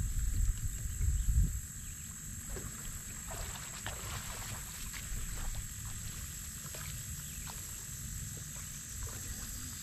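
Wind rumbling on the microphone, loudest for about the first second and a half, then dropping to a low steady rumble. Under it runs a steady high-pitched drone of insects, with faint scattered clicks and knocks.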